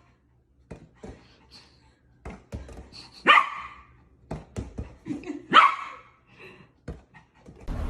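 A dog barking twice, loudly, about three seconds in and again about two seconds later, with small clicks and knocks in between.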